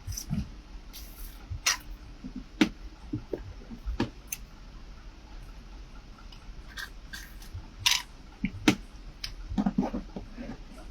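Scattered sharp clicks and knocks, about a dozen irregularly spaced, over a faint steady low hum.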